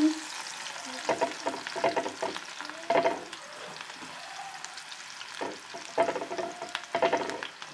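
Chopped garlic and slit green chillies sizzling in hot ghee. A spoon stirs and clicks against the pan about a second in, around three seconds, and again near the end.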